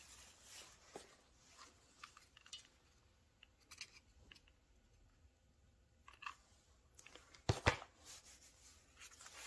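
Quiet handling of a folded paper rose and a hot glue gun: soft paper rustles and small scattered clicks, with one sharp click about three-quarters of the way through.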